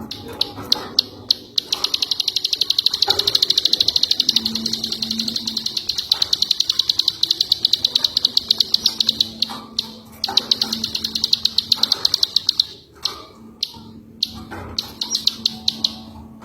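Ciwah songbird giving long, fast rattling trills of clicking notes, in several bursts broken by short pauses.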